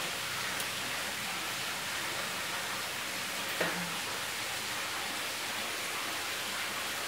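Steady soft sizzling hiss of pancake batter cooking in a nonstick frying pan, still setting before it bubbles and is ready to flip. A brief click about halfway through.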